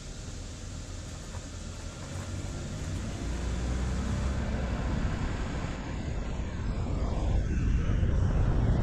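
Vehicle driving, its low rumble of engine and road noise growing steadily louder as it picks up speed.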